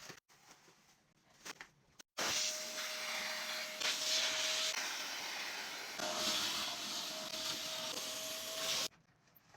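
A small electric motor appliance running and moving air: a steady rushing noise with a motor whine. It switches on abruptly about two seconds in and cuts off near the end.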